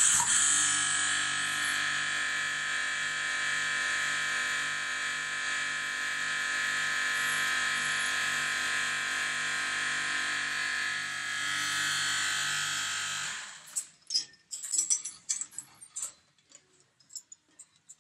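Electric roll-swaging machine running while a threaded terminal is swaged onto a steel wire rope: a steady machine whine with a slow pulse a little under twice a second. It stops about thirteen seconds in, followed by a few light knocks and clicks.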